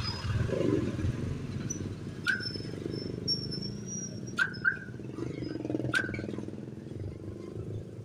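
Four sharp metallic clicks from the lock mechanism inside an opened car door as it is worked by hand, two of them close together in the middle, over a low steady hum.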